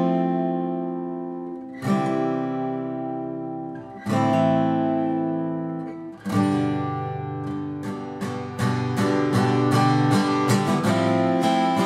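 Crafter HG500CE/N steel-string acoustic guitar playing the chord progression Fmaj7, C, Am, G with hammer-ons. For the first four chords each is struck once and left to ring for about two seconds; from about eight and a half seconds in, the progression goes on with quick, evenly repeated chord strokes.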